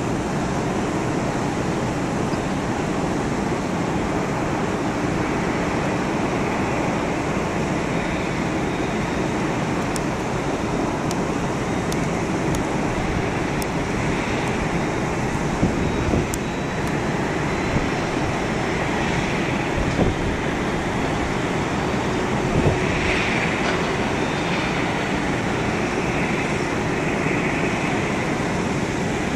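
Steady roar of a McDonnell Douglas MD-11F's three jet engines at idle as the freighter taxis onto the runway, mixed with wind noise. A few faint clicks are heard about halfway through.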